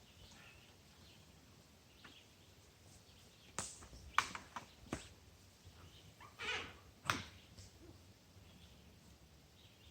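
A handful of sharp cracks, spread over a few seconds, with one short rustle among them, over a faint steady background.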